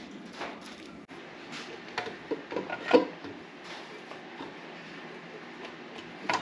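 Light clicks and knocks of metal engine parts being handled as an aluminum intake manifold is fitted to a V8 block, with a cluster of taps about two seconds in, the sharpest knock near three seconds, and a few more clicks at the end.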